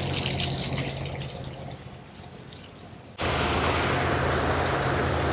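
Ferry's wake rushing and churning along the hull over the steady low hum of the ship's engines, cutting in suddenly and loud about three seconds in. Before that, a fainter engine hum and water noise fade down.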